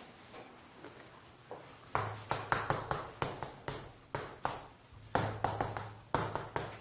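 Chalk tapping and scratching on a blackboard as words are written by hand: a quick series of short strokes, two to three a second, starting about two seconds in.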